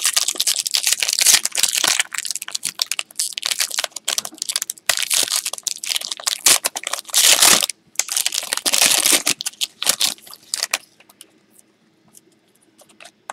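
Foil wrapper of a Panini Playbook football card pack crinkling and tearing as it is opened by hand. The crackling stops about eleven seconds in, leaving only faint clicks of the cards being handled.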